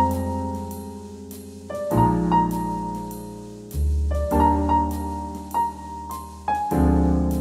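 Background piano music: slow sustained chords over deep bass notes, with a simple melody of single notes on top.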